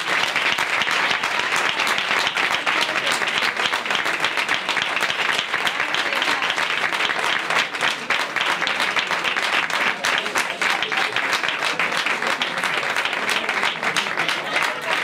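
Audience applauding steadily: a dense, continuous patter of many hands clapping, with a few voices in the crowd.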